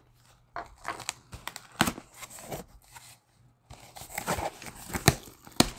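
Packing tape on a cardboard shipping box being slit and torn and the box flaps pulled open by hand: short tearing rasps and scattered sharp snaps of tape and cardboard, the loudest snaps near the end.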